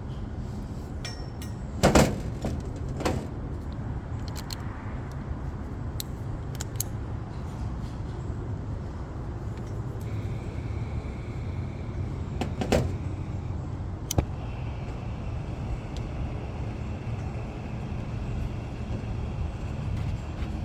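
A few sharp metallic clinks and knocks, loudest about two seconds in and again near the middle, over a steady low rumble.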